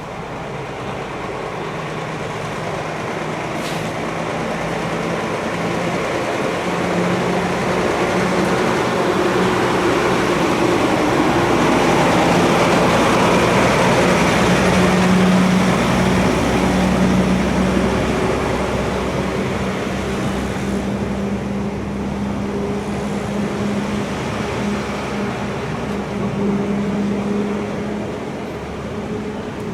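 Large truck engine running, growing louder to a peak about halfway through and then easing off, its pitch shifting slightly.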